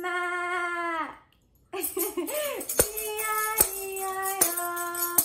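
A long bleating 'baa', held steady then dropping at the end. After a short gap, a voice sings short notes in the sheep verse of a children's farm-animal song, with a tambourine striking about once every 0.8 s.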